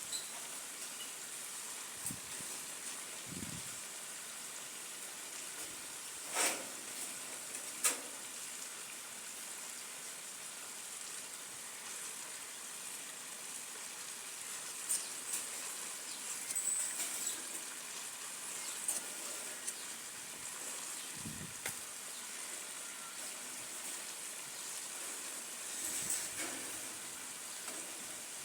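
Steady high-pitched hiss of outdoor pondside ambience, with a couple of short knocks about six and eight seconds in.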